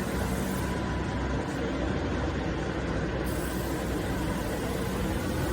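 Steady hum of machinery running, with a constant low drone and even noise.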